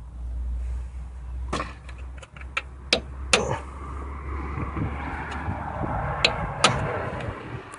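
A hammer tapping new steel cup expansion plugs into a Jeep 4.0 straight-six engine block: a string of sharp, irregular metallic knocks, about eight in all. A steady low hum runs under them and fades about three-quarters of the way through, and a hiss swells in the middle.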